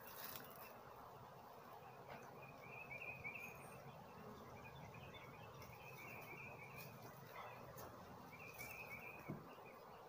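Quiet outdoor ambience: a bird twittering on and off over a faint, steady hum of honeybees around an open hive. A soft knock comes near the end.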